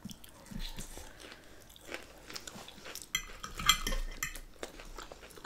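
Close-up eating sounds: crunchy chewing of Caesar salad, with forks clicking and scraping in glass dishes. The crunching comes thickest a little past halfway.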